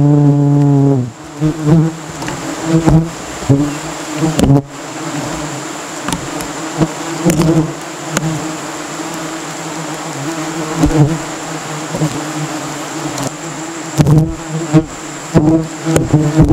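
Bees swarming around their nest, buzzing, with single insects passing close by in loud, wavering buzzes that come and go. The loudest buzz is in the first second. A few sharp clicks fall in between.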